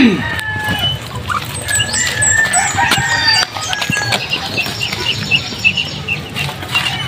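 Birds chirping and calling: many short high chirps and falling whistles, with a run of quick repeated notes, about four a second, in the second half.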